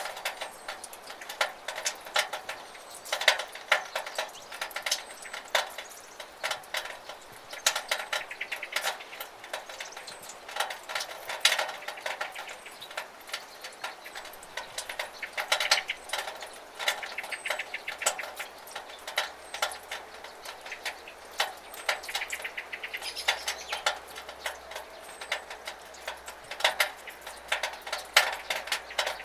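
Water in a rain gutter, dripping and splashing in irregular drips, several a second, over a light steady hiss of running water.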